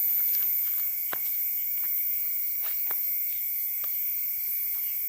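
Crickets and other night insects chirring steadily in high-pitched layers, with a few faint short clicks scattered through.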